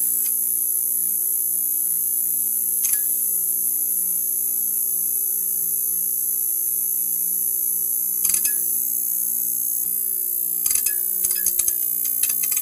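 Neon sign buzzing: a steady electrical hum under a high, hissing whine, with sharp crackling clicks, one about three seconds in, another after eight seconds, and a quick run of them near the end.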